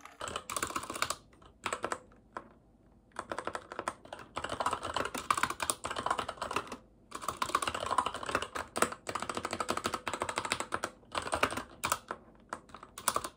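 Fast typing on a mechanical keyboard: rapid key clatter in runs, broken by short pauses.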